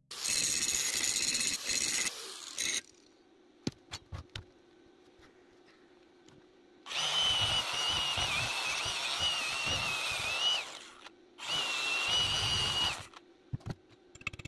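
Angle grinder working steel in three runs, about three seconds, four seconds and one second long, its motor whine wavering as the disc bites. Light clicks and knocks between the runs and near the end.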